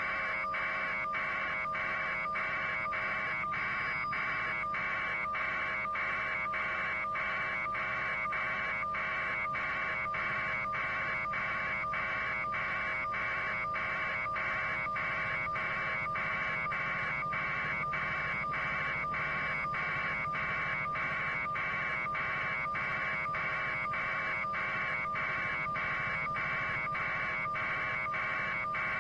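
A steady buzzing noise chopped into short, evenly spaced pulses, over a faint steady hum, at an unchanging level.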